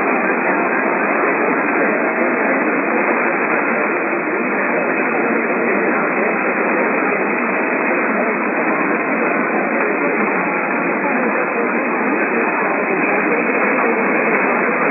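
Radio static: a steady, even hiss from a radio receiver with a narrow, muffled audio band.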